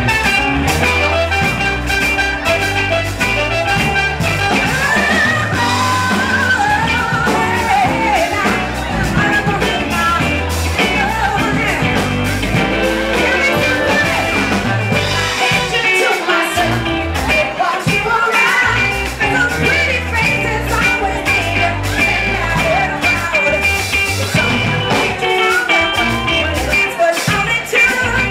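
Live band playing an upbeat song: female lead vocals over electric bass, drums, keyboard and horns, loud and steady. The bass drops out briefly about halfway through.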